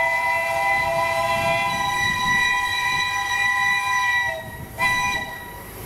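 Steam locomotive whistle sounding a long chord of several steady notes as the engine runs into the station, cutting off about four seconds in, then a second, shorter blast about half a second later.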